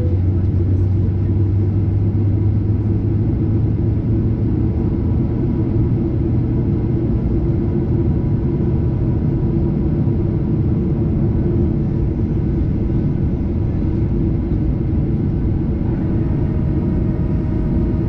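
Boeing 737-800 heard inside the passenger cabin on the ground: a steady, loud low rumble of the jet engines at idle and the cabin air. A deep hum in it eases after about four seconds.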